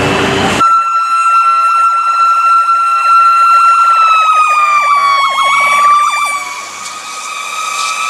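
Fire truck sirens on responding apparatus: a loud, high, steady siren whine that sags in pitch about halfway through and then steadies, with a faster warbling siren underneath. For the first half-second there is a hissing rush of noise before it.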